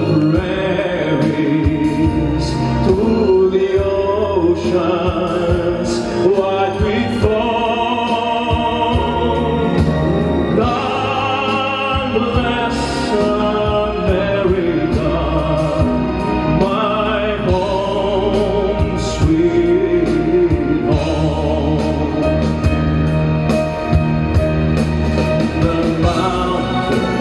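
A man singing a song into a microphone, with instrumental backing music.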